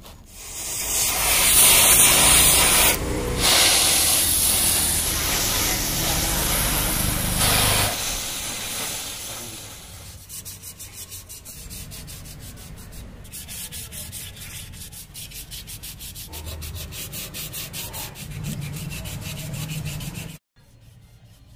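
Aluminium engine side cover of a Yamaha RX100 being sanded by hand with abrasive paper: a loud, steady scraping for the first several seconds, then quieter, rhythmic back-and-forth rubbing strokes. The sound cuts off abruptly near the end.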